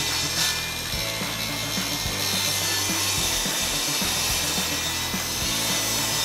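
Table saw ripping a pine board, a steady cutting noise as the wood is fed past the blade.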